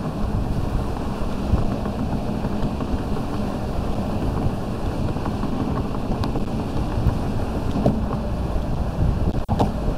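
Car driving at highway speed: a steady rush of road and tyre noise with wind buffeting the microphone, heaviest in the low end. There is a brief dip in loudness near the end.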